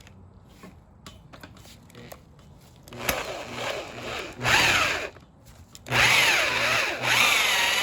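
Hand drill with a cobalt bit boring into a rounded-off engine bolt, enlarging the pilot hole. After a few quiet seconds of faint clicks, it runs in a short burst about three seconds in, stops, and starts again near the end, its whine rising and falling as the motor loads up in the steel.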